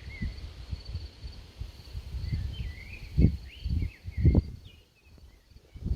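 Birds chirping in short, repeated pitch-bending calls over a faint steady high insect-like hum, with low wind rumble on the microphone that surges loudest about three and four seconds in.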